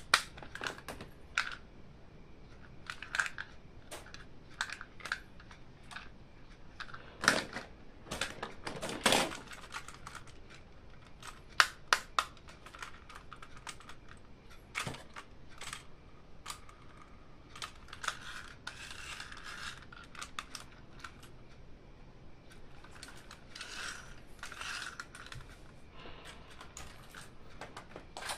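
Toy packaging and toy parts being handled and unwrapped: scattered light clicks and taps, with bursts of crinkling and a few sharper snaps.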